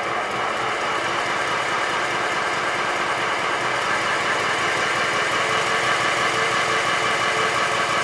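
Model Stirling Single steam locomotive running fast on compressed air in place of steam: a steady rush of rapid exhaust and motion noise that grows slightly louder partway through.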